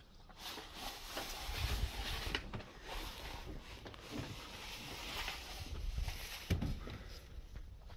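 Footsteps and handheld-camera handling noise while walking around outdoors: scattered low thumps and a few clicks over a rushing noise that rises about half a second in and eases near the end.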